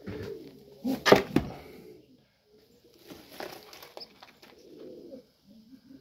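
Pigeons cooing softly in a loft, low murmuring calls coming and going. A cluster of sharp knocks or rustles about a second in is the loudest sound.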